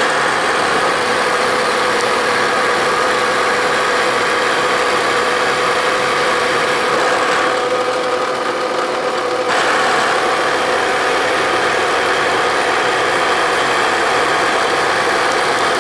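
Vertical milling machine's end mill side-cutting an aluminum block, taking a 30-thousandths cut: a steady cutting sound with a constant tone over the spindle's running, easing briefly about halfway through before biting again.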